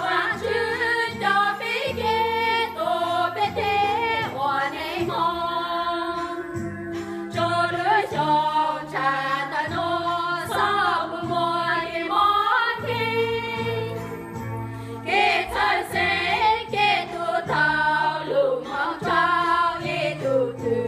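A small group of women singing a Christian song together in unison from song sheets, over low held notes that change every second or so.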